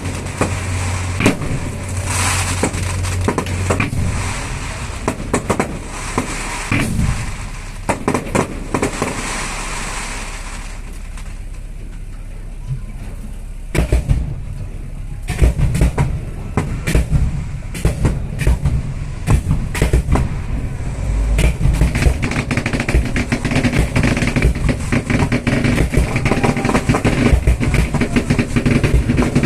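Fireworks display going off at close range: scattered bangs of bursting shells, a brief lull about ten seconds in, then a dense run of rapid cracks and bangs.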